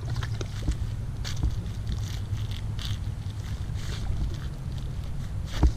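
Wind buffeting the microphone in a steady low rumble, with faint scattered clicks and one sharp knock near the end.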